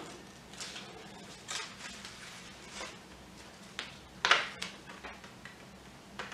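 Construction paper rustling and scraping as glued pieces are overlapped and pressed down by hand on a table. It comes as a few short scrapes, the loudest about four seconds in.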